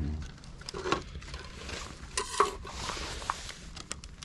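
Scattered light knocks, clicks and scrapes of a hardened fiberglass part being handled and tried for fit, with a short rattle about two seconds in.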